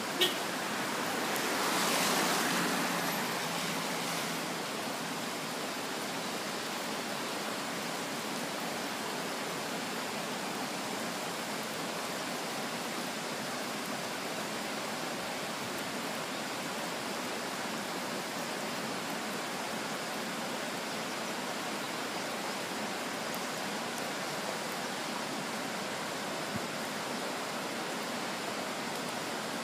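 Steady rushing of water, like a stream or river running high with typhoon rain. A brief click right at the start and a short swell about two seconds in.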